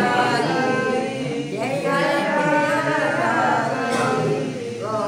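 Devotional singing of an aarti hymn, voices chanting with long held notes that run on without a break.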